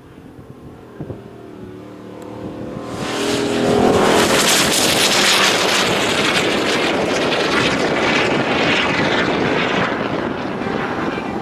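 A loud vehicle engine comes in about three seconds in and runs hard, with a rush of exhaust noise, easing off slightly near the end.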